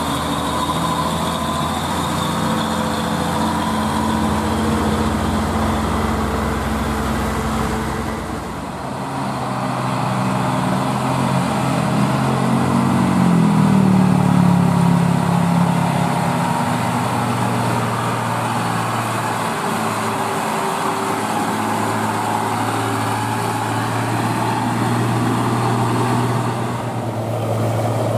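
Old diesel truck engines labouring up a steep grade. First a box truck pulls on the climb, then an old Mitsubishi Fuso climbs under a heavy load. Its engine note swells and bends up and back down about halfway through, the loudest part.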